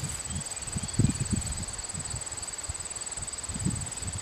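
A hand digging and scraping through crumbly rotten wood and soil: a run of low, irregular scuffs and soft thuds, loudest about a second in.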